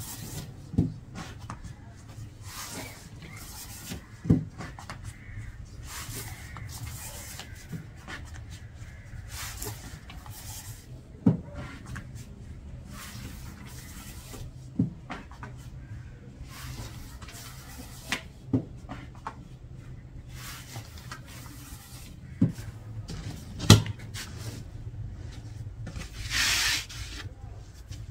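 Hand work on a wooden surface: repeated rubbing and scraping strokes, broken by about eight sharp knocks at irregular intervals. A brief hiss comes near the end.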